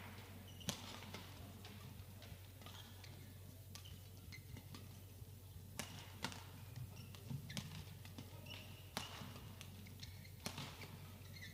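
Badminton rally: sharp racket hits on the shuttlecock at irregular intervals, with the players' footwork on the court, over a faint steady hall hum.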